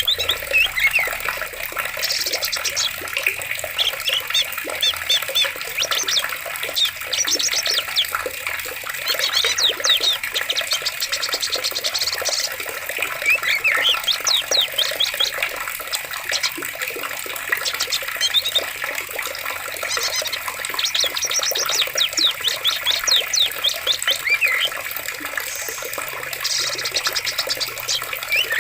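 Running water in a forest stream, a continuous rushing flow, with songbirds calling over it in repeated runs of quick, high chirps and a few short falling whistles.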